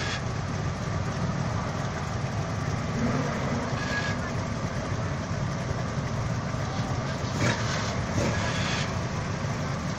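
Car engine idling with a steady low rumble, and a few brief faint sounds on top near the middle and toward the end.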